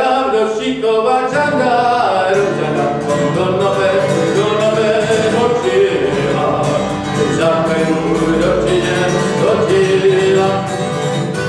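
A man singing a Czech folk song, joined about a second in by acoustic guitar strumming.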